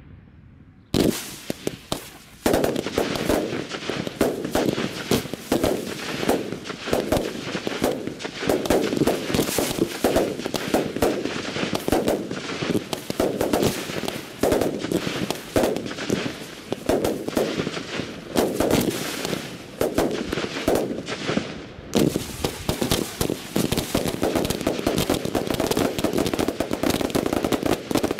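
Daytime ground-fired fireworks in the Valencian mascletà style: after about a second of lull, firecrackers go off in a rapid, nearly unbroken run of sharp bangs that keeps going to the end.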